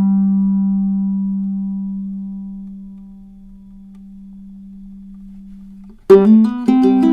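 Koa-and-redwood tenor ukulele with fluorocarbon low-G strings: a single low note rings on and slowly fades for about six seconds, then quick picked notes begin.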